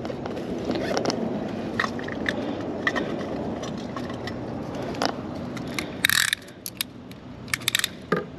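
Close handling noises: a steady rustle with small clicks, then a brief loud harsh rasp about six seconds in, followed by a few sharp clicks near the end.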